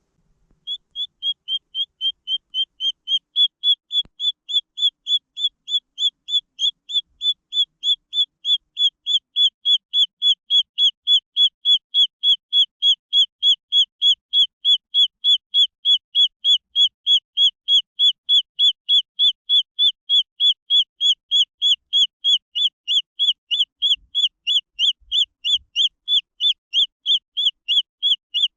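Green junglefowl chick peeping: short, high, whistled peeps repeated evenly about three times a second in one long unbroken series.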